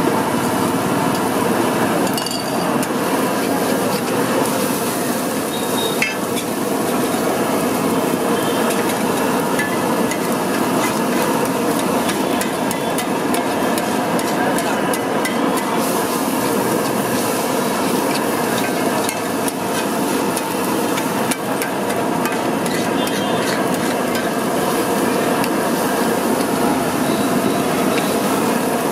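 Flat steel spatula tapping and scraping on a large iron tawa in rapid, continual clinks as egg bhurji is chopped and stirred, with the mixture sizzling underneath.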